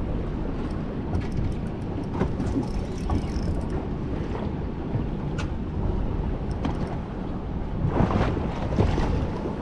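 Wind buffeting the microphone over water slapping and sloshing against a small boat's hull in choppy rebound swell, with a few light clicks and a couple of louder knocks near the end.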